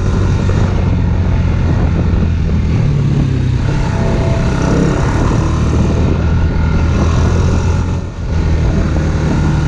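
Off-road vehicle engine running under way on a trail ride, its pitch stepping up about two and a half seconds in, with a brief dip in throttle just after eight seconds.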